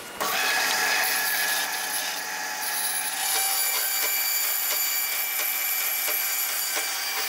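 A power tool starts up and runs steadily, trimming a 10 mm rivet to length, with a constant motor whine under a hissy cutting sound.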